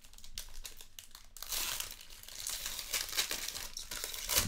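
Foil wrapper of a 2020 Panini Origins Football hobby pack being torn open and crinkled in the hands. It makes a run of fine crackling, heaviest about a third of the way in, with one sharper crackle near the end.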